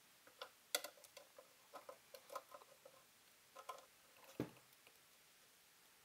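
Faint, scattered small metallic clicks and ticks of a hand tool turning a Keps nut down onto a steel chassis ground stud, the sharpest about 0.7 s and 4.4 s in.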